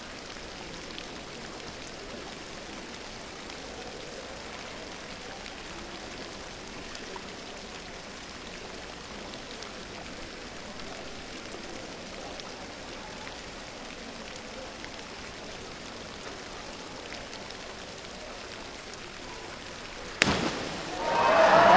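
Steady, rain-like hiss of a hushed indoor diving pool while a diver holds an armstand on the 10 m platform. About 20 seconds in comes one sharp smack as the diver enters the water, and crowd noise swells right after.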